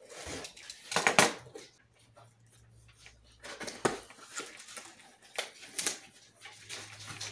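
Cardboard parcel being cut open with a box cutter and handled: blade scraping through the packing tape and the cardboard box knocking and rustling as its flaps are pulled open. A few sharp scrapes and knocks, the loudest about a second in.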